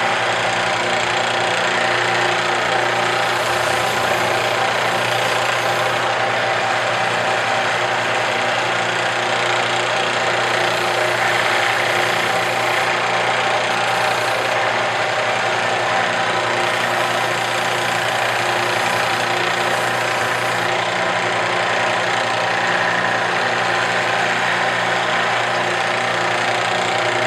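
Belt sander mounted upside down, its motor running with a steady hum while a boot sole's edge is held against the moving abrasive belt. The sanding wears down the flange left where the sole overlaps the welt.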